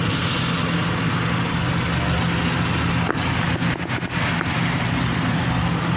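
Diesel train running with a steady low engine drone, with a few sharp knocks about three to four seconds in.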